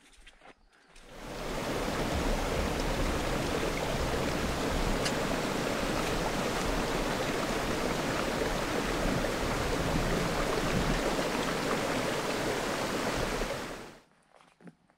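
Loud, steady rushing noise with a low rumble underneath, fading in about a second in and fading out near the end.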